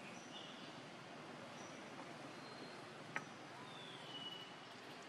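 Faint outdoor background hiss with short high chirps. There is one sharp click about three seconds in and a brief falling whistle about a second later.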